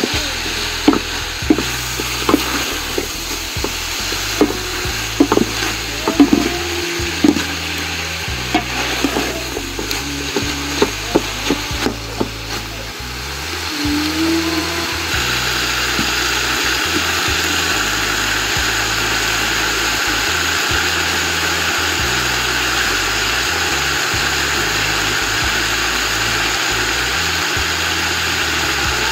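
Beef liver, onions and green peppers sizzling in a large metal pot, with a metal ladle stirring and clanking against the pot's sides. About halfway through the clanking stops and a louder, steady sizzle carries on.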